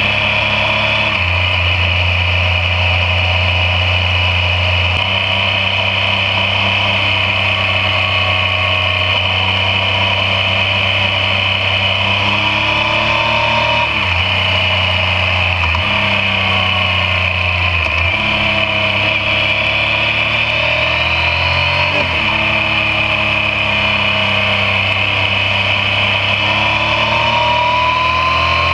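Yamaha MT-09's three-cylinder engine running under way, its note rising and falling several times with short dips that fit gear changes, over a steady rush of wind and road noise.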